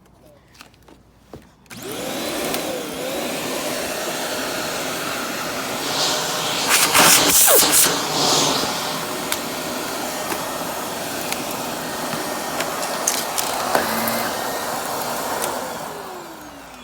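Shark Navigator Lift-Away upright vacuum switched on about two seconds in, its motor spinning up and then running steadily, louder for a couple of seconds around the middle. Near the end it is switched off and the motor winds down.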